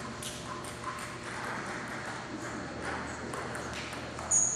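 Table tennis ball rally: the celluloid ball ticking off paddles and the table, a sharp tap roughly every half second to second, over a low crowd murmur. A brief high squeak near the end.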